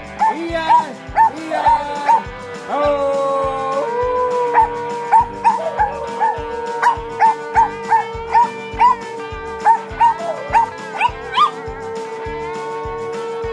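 A small Chihuahua-type dog howling along with music: a short howl a few seconds in, then one long, slightly wavering howl held from about four seconds in, over a quick run of short, repeated high calls.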